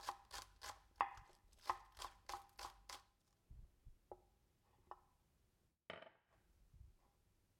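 Chinese cleaver chopping green onion on a wooden cutting board: a quick run of about a dozen sharp knocks, three to four a second, for the first three seconds, then a few softer, scattered knocks.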